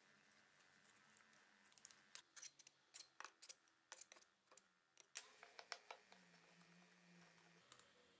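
Light metallic clicks and taps, a rapid irregular run of them through the middle and a couple more near the end, as a metal rod packs a wick down into a brass blowtorch fuel tank.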